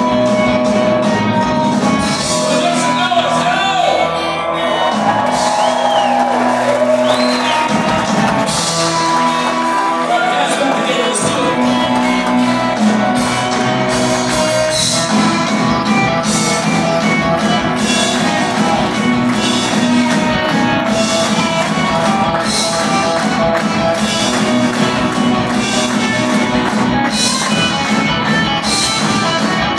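A live rock band playing: electric guitars, a drum kit with a steady beat, and singing. It is heard from the audience, with the echo of a large hall.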